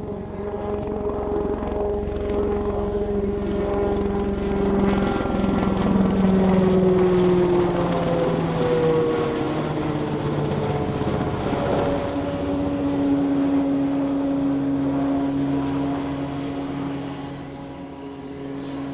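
X-49A compound helicopter flying past at high speed, its rotor and ducted propeller making a loud droning whine over a low rumble. The pitch drops as it passes, loudest about six seconds in, and drops again around twelve seconds in.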